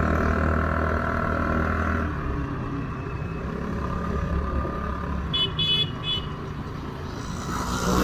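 Motor scooter running along a wet road, with engine hum and wind and road noise. About five and a half seconds in, a horn gives a few quick beeps.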